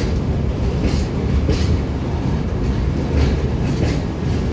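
Empty ballast hopper wagons of a freight train rolling past: a steady low rumble of wheels on rail, with wheels clacking now and then.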